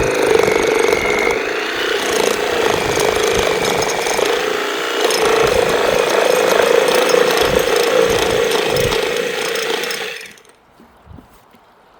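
Handheld power tool running under load, cutting through PVC plumbing pipe, with a steady motor hum. It stops abruptly about ten seconds in.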